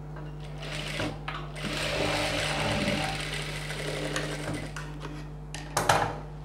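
Industrial lockstitch sewing machine running a seam through blouse fabric, strongest for a few seconds in the first half and then slowing off. Near the end a brief sharp rustle as the fabric is pulled away from the machine.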